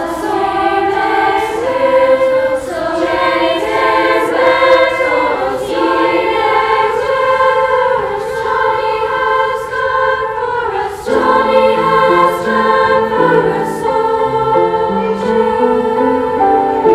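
A girls' choir singing in parts, holding long notes in close harmony. About eleven seconds in, the sound fills out with a lower line of short stepping notes beneath the sustained voices.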